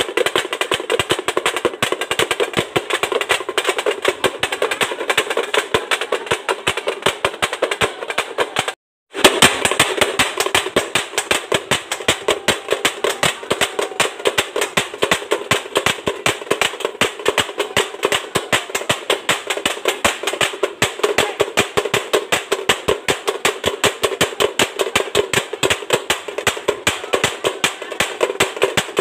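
Fast drumming: a dense, steady run of sharp drum strokes that breaks off for a moment about nine seconds in, then carries on.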